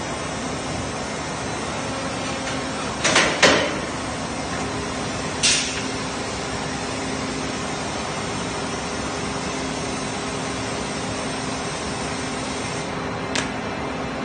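Plastic injection-moulding machine with its robot arm running: a steady machine hum, with a cluster of short sharp sounds about three seconds in, another brief burst a couple of seconds later, and a single click near the end.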